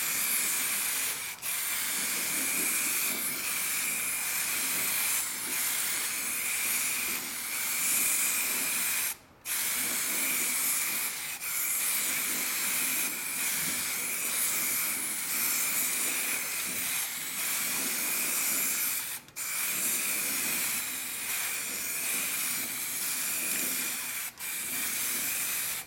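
Aerosol can of wheel spray paint hissing as the final coat goes onto a steel wheel rim, with a thin whistling tone in the hiss. It stops briefly three times as the nozzle is let go.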